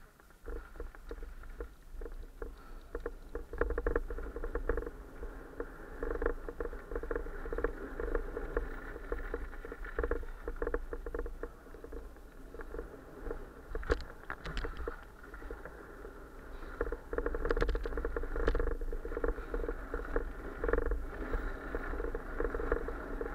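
Downhill mountain bike rolling over a dirt and gravel trail: tyres crunching and the bike rattling over bumps, with a low rumble and several sharper knocks on bigger bumps from about the middle on.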